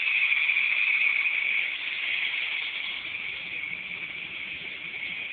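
Small toy remote-control helicopter's electric motor and rotors whirring in flight: a steady, high-pitched buzz that gets a little quieter after about two seconds.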